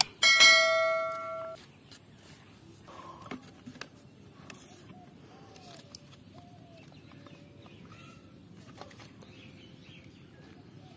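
A bright bell ding, the notification-bell sound of a subscribe-button animation, struck once about a quarter second in and ringing out for about a second. Faint bird calls follow.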